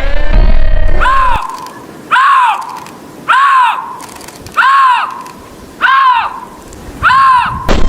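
An animal calling: a short, clear, rising-then-falling call, repeated six times at an even pace of about one every 1.2 seconds.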